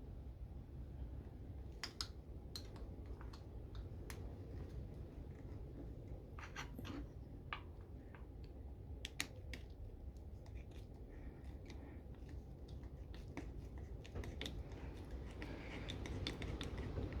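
Scattered light clicks and taps of parts being handled, over a faint low rumble.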